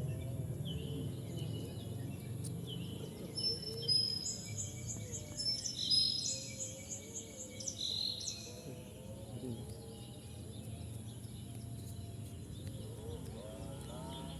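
Small birds chirping and trilling in quick repeated notes, loudest about four to eight seconds in, over a steady low rumble of wind.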